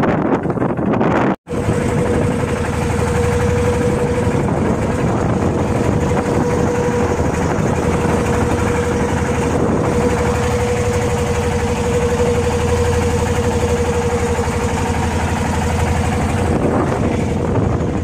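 Fishing boat's engine running steadily under a dense rush of wind and sea noise, with a steady hum. The sound drops out completely for an instant about a second and a half in.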